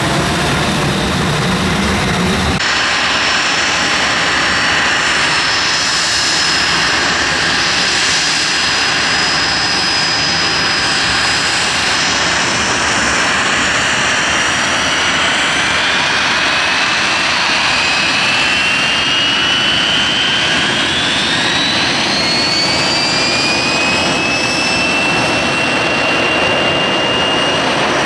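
Blackburn Buccaneer's Rolls-Royce Spey jet engines running loud and steady, with a high whine over the roar. From about two-thirds of the way through, the whine rises steadily in pitch as the engines spool up for a fast taxi run.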